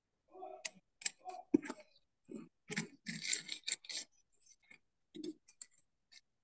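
Calculator keys being pressed: an irregular run of clicks and taps, some in quick clusters, while cos 17π/12 is worked out.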